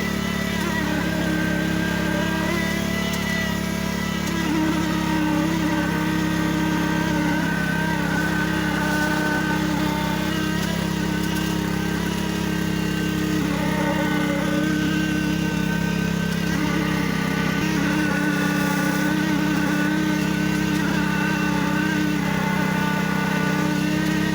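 Engine-driven construction machinery running steadily at one speed: a loud drone with a buzzing whine that wavers slightly in pitch.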